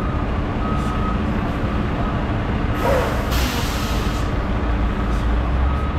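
A heavy roll-off truck's diesel engine running as it backs up, its backup alarm beeping on and off. About three seconds in comes a hiss of air from the truck's air brakes that lasts over a second.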